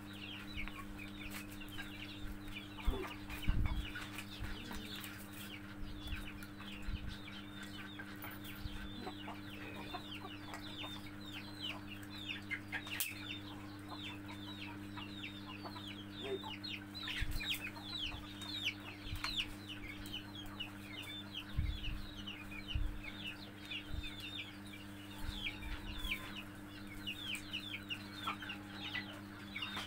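Chickens clucking and chirping, with many short falling chirps that run without a break over a steady low hum. A few soft knocks are heard now and then.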